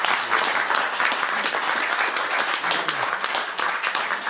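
Audience applauding: many hands clapping together, starting to die down near the end.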